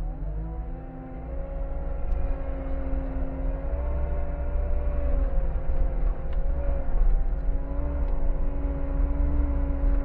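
Skid steer engine running at high revs from inside the cab, rising in pitch about half a second in and then holding steady with a constant whine over a low rumble as the machine drives forward.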